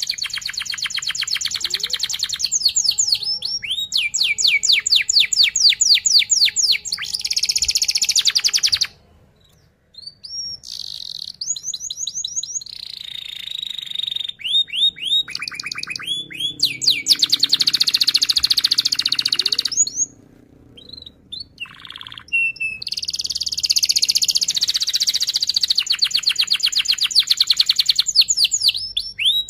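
Domestic canary singing its rolling song: long runs of rapid, evenly repeated high notes, with short pauses about nine seconds in and again about twenty seconds in.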